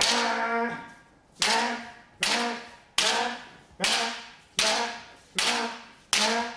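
Bamboo shinai striking an armoured partner's men (head protector) in rapid alternating left-right sayu-men strikes. There are eight sharp cracks at an even pace, about one every 0.8 s, each followed by a brief ringing tone that fades.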